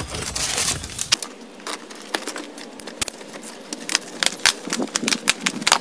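A cardboard shipping box being opened and handled: a brief rustling rush about half a second in, then a long string of irregular sharp taps and clicks from the cardboard flaps and packaging.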